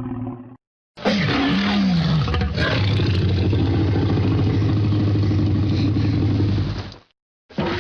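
Dinosaur roar sound effect, a Tyrannosaurus rex roar: one long roar of about six seconds that falls in pitch at the start and then holds a low, steady growl, cut off cleanly. The end of a previous roar stops just after the start, and another begins near the end.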